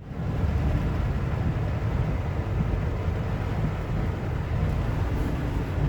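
Steady rain falling, a continuous hiss over a strong low rumble.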